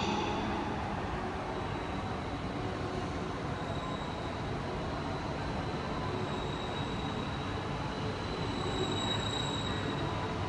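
Shinkansen train running along the platform, most likely the E2-series Hayate set, with a steady rumble and a faint high-pitched whine.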